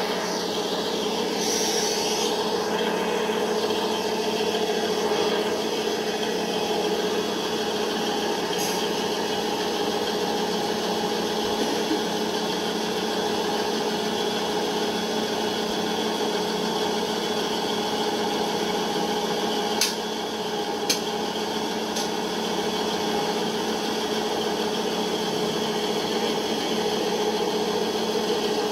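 Model Class 158 diesel multiple unit at a model railway platform giving a steady mechanical hum, with two sharp clicks about two-thirds of the way through.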